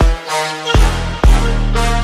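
Background electronic music: sustained synth tones over deep bass drum hits.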